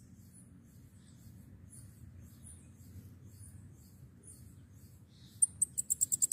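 Bananaquit (sibite) singing. After a few seconds of faint, scattered high chirps, a rapid run of very high, thin notes starts about five seconds in.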